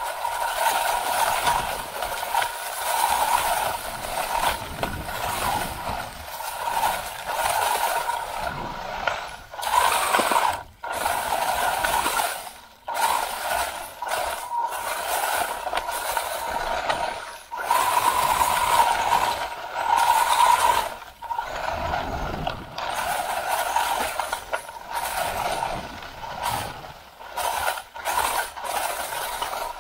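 WLtoys 144001 1/14 RC buggy's brushed electric motor and geared drivetrain whining as it drives, heard close from a camera mounted on the car. The whine swells and fades with the throttle and cuts out briefly several times, over a rattling hiss from the tyres and chassis on rough, leaf-covered ground.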